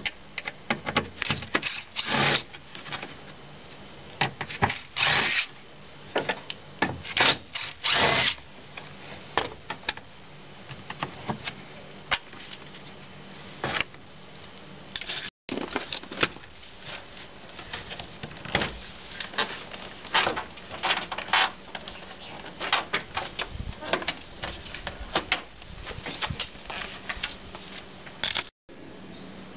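Tool work on a pickup's door interior, heard as a string of irregular clicks, scrapes and short rasping noises.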